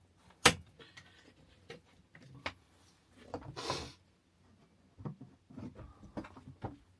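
Scattered knocks and clicks of things being handled, with a sharp click about half a second in, a short hiss near the middle, and a run of small knocks near the end.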